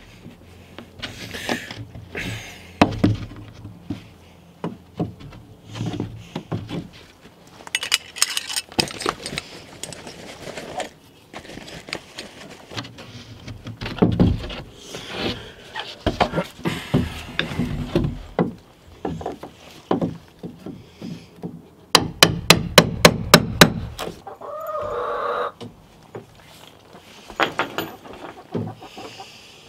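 Scattered wooden knocks and taps as plywood boards and a metal hinge are handled and fitted on a chicken-coop wall. About two-thirds through comes a short burst of quick, evenly spaced clicks over a low whir from a cordless drill-driver.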